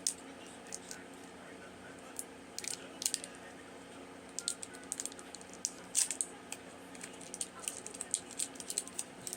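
Scattered light clicks, rattles and crinkles of a Toxic Waste sour candy package being handled and worked open, over a faint steady hum.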